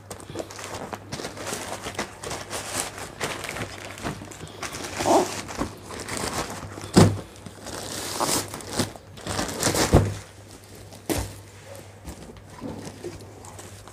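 Plastic courier bag being crinkled and torn off a cardboard package by hand, with irregular rustling throughout. A few thumps come as the box is handled, the loudest about seven and ten seconds in.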